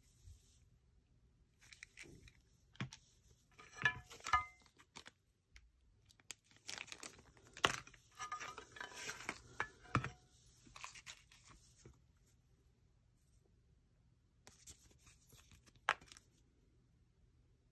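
Handling noises from unpacking: a small box being moved and paper cards and inserts rustling, with a few sharp taps, in bursts with quiet stretches between.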